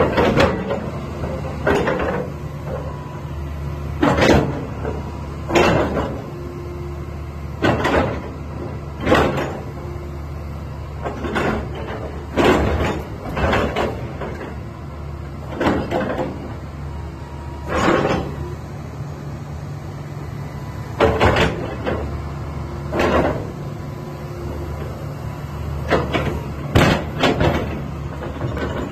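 Hitachi ZX350 tracked excavator's diesel engine running steadily, with loud clunks every one to three seconds, about fifteen in all.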